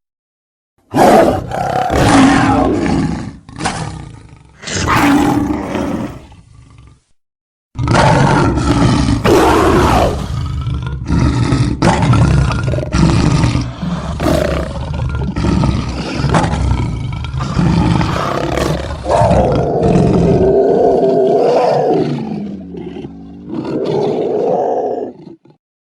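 A series of creature roars and growls made as monster sound effects: two short roars about a second and four seconds in, then a long run of roaring from about eight seconds in, its pitch wavering and gliding near the end.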